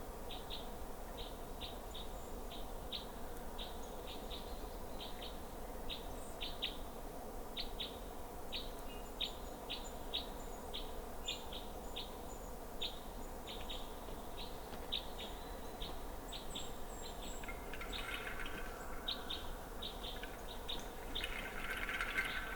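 Small forest birds calling: a long series of short, high chirps, about one or two a second, over a faint steady background.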